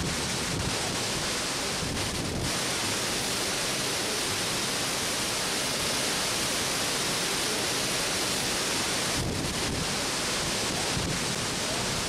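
Devkund waterfall in heavy monsoon flow, close at hand: a steady, dense roar of falling water.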